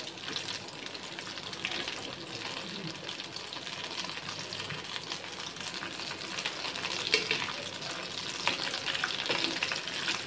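Hot oil sizzling and crackling around breadcrumb-coated potato rolls deep-frying in a pan, with a metal spoon stirring and lifting them, one sharper tap about seven seconds in. The rolls are fried golden brown and ready to come out.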